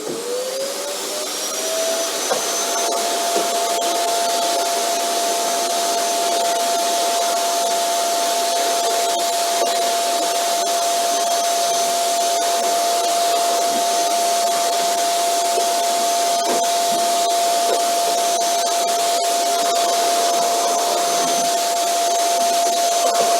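Vacuum cleaner motor spinning up, its whine rising over the first two seconds or so, then running steadily: a constant whine over a rushing hiss of air.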